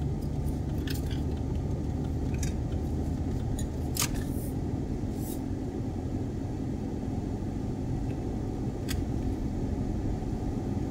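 Car driving slowly, heard from inside the cabin: a steady low rumble of engine and tyre noise, with a few faint clicks.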